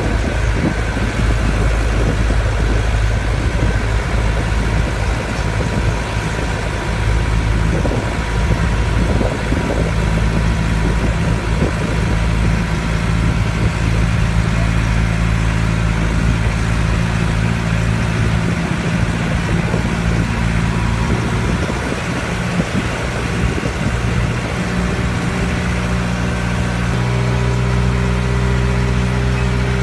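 A sightseeing tram's engine running steadily, heard from on board; its tone steps up and down a few times as it changes speed.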